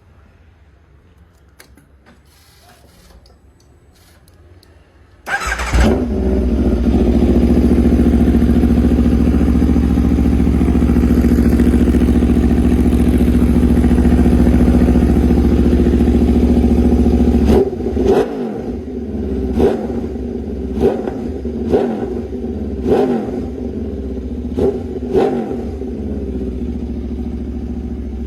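Sport motorcycle with an SC Project aftermarket exhaust starting up about five seconds in and running at a steady, loud high idle. Near the end it drops to a lower idle, broken by about seven quick throttle blips.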